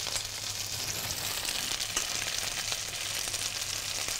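Red mullet fillets frying in hot oil in a frying pan: a steady sizzle with small crackling pops.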